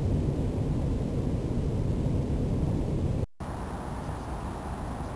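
Steady low rumbling vehicle noise, a looped sound effect that cuts out for a split second about three seconds in and then resumes.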